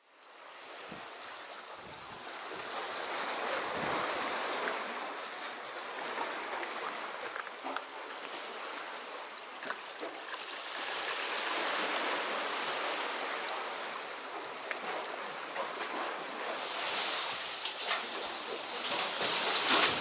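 Sea waves washing against the concrete tetrapods of a harbour breakwater, fading in at the start, then swelling and easing slowly every several seconds, with a few faint clicks.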